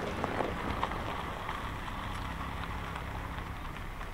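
Car driving slowly on gravel: tyres crunching with scattered small clicks, under a low steady engine hum that grows louder near the end.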